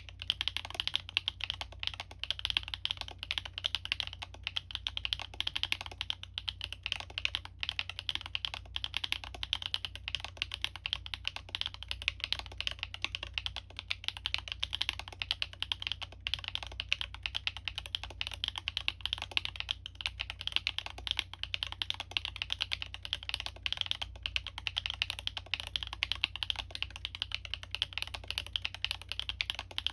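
Continuous typing on a Libra Mini custom mechanical keyboard with stock Gateron x Siliworks Type R switches, an aluminium plate and PBT keycaps: a steady, dense stream of key clacks.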